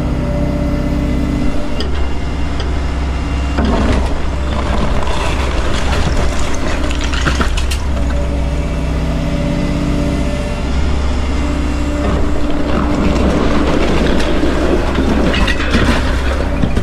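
Excavator diesel engine running as the boom and bucket work, with two long stretches of rough scraping and clattering as cinder blocks are pulled off a block chimney and fall.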